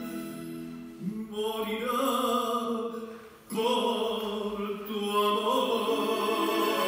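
Tango music playing, with long, gliding melodic lines. It drops away briefly a little after three seconds in, then comes back in full about half a second later.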